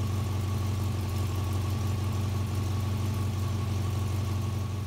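Power unit of a homemade hydraulic wood splitter running steadily: a constant low hum with a faint high steady whine, as the control valve works the ram.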